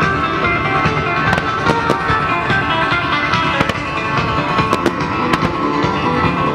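Guitar-led music plays steadily under a fireworks display, with firework shells bursting in a string of sharp bangs, often in quick pairs, cutting through it.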